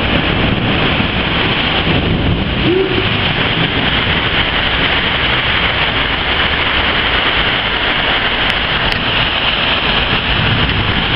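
Heavy storm rain with strong wind gusts: a steady, loud rushing noise with no single event standing out.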